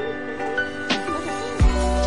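Background music with held tones and a light, regular beat; a deep bass line comes in near the end.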